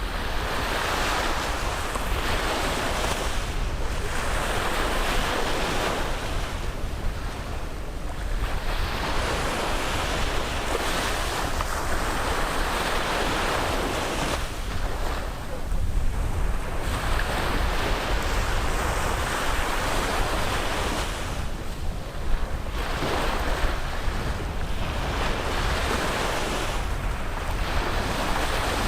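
Caribbean sea waves breaking and washing up the beach, the surf hiss swelling and fading every few seconds, over a steady low rumble of wind on the microphone.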